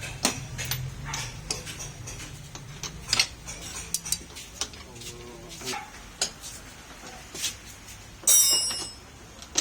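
Metal parts and tools of a rack-and-pinion steering repair clinking and tapping at irregular intervals, over a low hum that fades out about four seconds in. About eight seconds in there is one short, louder, high-pitched noise.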